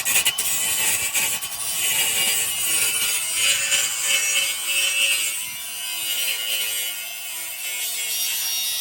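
Angle grinder grinding the steel of an exhaust muffler hanger down to bare metal, running steadily under load for several seconds.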